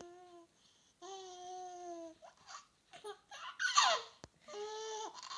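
Baby laughing in long, high squealing notes of about a second each, with a louder shriek that slides downward in the middle.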